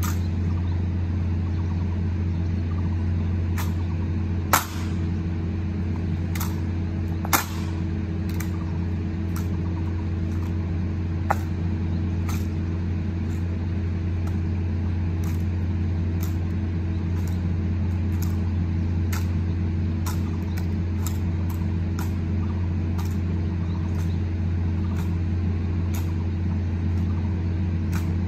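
Honour-guard rifle drill: a run of sharp clacks and knocks as rifles are handled and slapped in gloved hands, the loudest about four and a half and seven seconds in, over a steady low hum.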